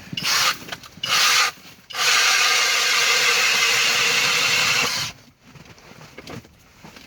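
A 6-inch ice auger driven by a Kobalt 24V Max XTR brushless cordless hammer drill, boring into lake ice. It gives two short bursts, then runs steadily for about three seconds and stops, with quieter scraping of the auger and ice shavings after.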